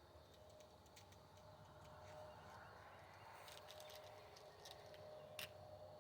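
Near silence: faint outdoor ambience with a thin steady tone coming and going, a few soft clicks after the middle and one sharper click near the end.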